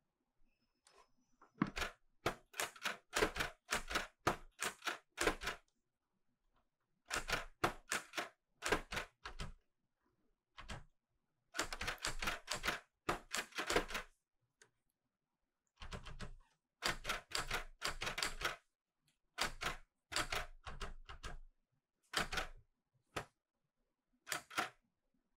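Clover 810S manual typewriter being typed on: runs of quick, sharp typebar strikes on the platen, broken by short pauses of about a second between runs.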